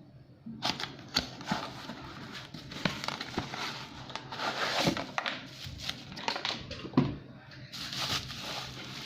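Crinkling and rustling handling sounds, broken by frequent sharp clicks and knocks, over a faint steady low hum.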